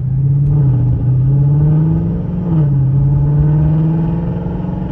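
Car engine pulling under acceleration, its pitch climbing and then dropping suddenly about twice, as at upshifts.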